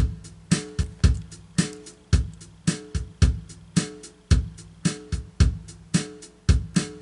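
Instrumental intro music with a steady beat, a little under two beats a second, and plucked guitar notes.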